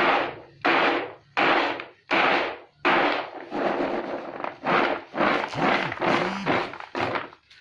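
Harvested cardamom pods rattling and sliding on a woven bamboo winnowing tray as it is tossed, in regular strokes about every three-quarters of a second.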